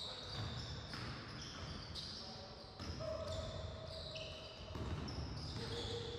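Basketball game play on an indoor court: the ball bouncing and short high-pitched sneaker squeaks on the floor, with some players' calls.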